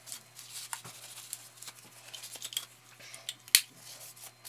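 Scrubbing the inside of an AR-15 upper receiver with a cleaning wipe: short scratchy rubbing strokes, with one sharp click of metal knocking about three and a half seconds in.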